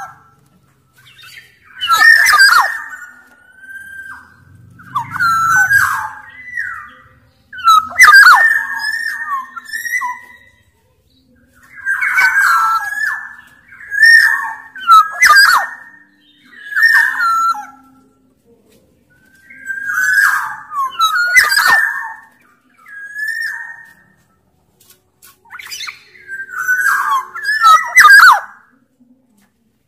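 Sumbawa black-naped oriole (kepodang) calling over and over in loud phrases of one to two seconds, mixing whistled and harsh, grating notes, with short pauses between them.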